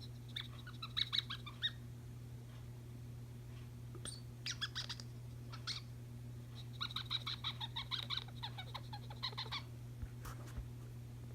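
Pet cat chattering: several runs of quick, high chirps, the longest lasting about three seconds near the end.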